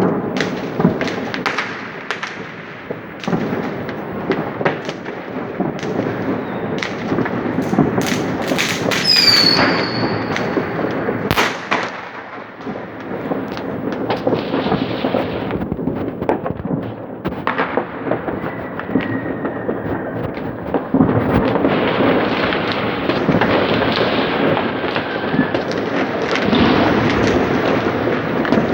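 Fireworks and firecrackers going off continuously: a stream of sharp bangs over dense crackling, with a brief high falling whistle about nine seconds in. The crackling grows denser in the last third.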